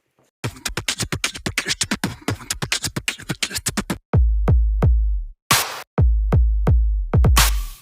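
Electronic background music built on a drum machine: a fast run of sharp beat hits starting about half a second in, then heavy booming bass drum beats from about four seconds in, with a brief break in the middle of them.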